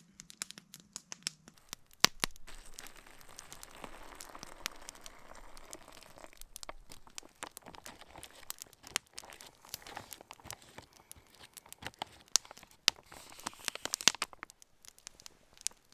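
A foil-lined dehydrated meal pouch crinkling and crackling in irregular bursts as it is handled while hot water is poured in and the contents are stirred.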